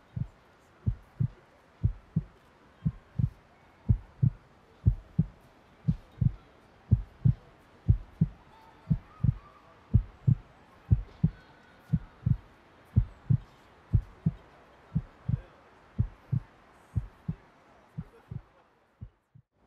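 Heartbeat sound effect: low double thumps, about one beat a second. They grow louder toward the middle, then fade and stop near the end.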